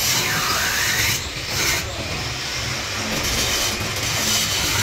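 Handheld angle grinder grinding steel, its whine dipping and rising again as the disc bites, over a continuous rasping noise.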